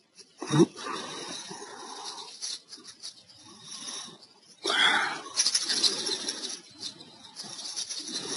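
Irregular keyboard typing and soft rustle on a close microphone, with a louder rush of noise about five seconds in.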